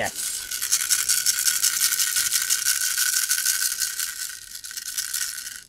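Black plastic BB-gun magazine being handled, a continuous fast rattle of clicks with a steady high tone underneath, stopping abruptly near the end.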